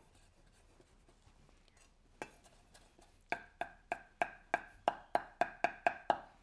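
Chinese cleaver chopping cilantro on a thick round wooden chopping block. A few faint taps come first, then from about three seconds in a steady run of sharp chops, about three a second, each with a brief ring.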